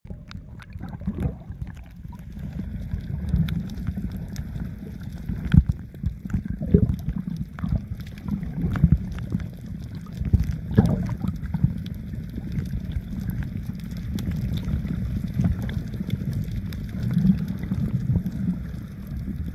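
Muffled underwater sound: a steady low rumble of moving water with gurgling and bubbling, broken by several sharper knocks around the middle.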